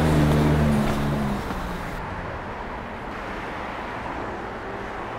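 A low, steady hum for about the first second and a half, then a steady background noise like distant traffic.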